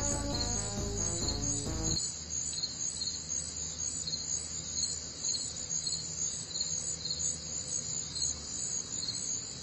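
A steady, high-pitched chirring of insects such as crickets, with a regular pulse in it. Music plays over it at first and stops abruptly about two seconds in, leaving the insect chorus alone.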